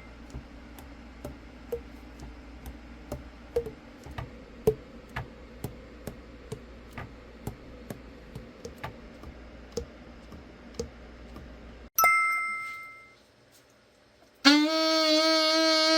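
A chime rings, followed by light clicks about twice a second over a low hum. About twelve seconds in, a second chime rings. After a short pause, an Albert Weber Evolution I alto saxophone plays a held note that steps down in pitch near the end.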